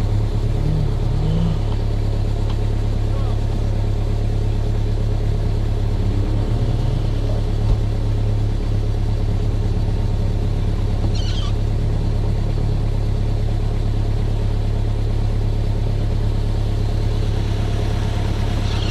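Off-road 4x4 engine running with a steady low drone that barely changes.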